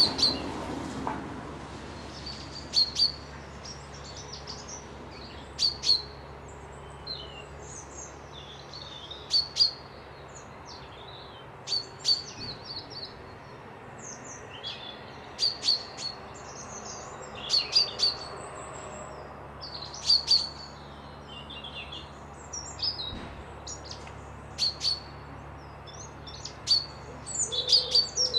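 Wild songbirds chirping and whistling: short, sharp, high-pitched notes and brief trills from several birds, coming every second or two, over a faint steady low hum.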